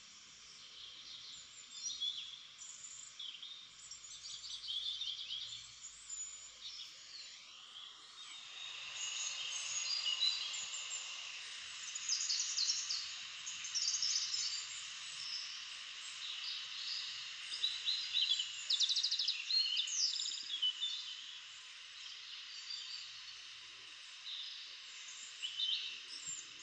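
Many small birds chirping and twittering in short high calls and quick trills over a steady hiss.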